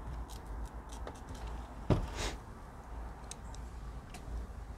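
Small clicks and scrapes of a screwdriver and self-tapping screws in a plastic car door-mirror housing as the screws are driven in, with a single dull knock about two seconds in.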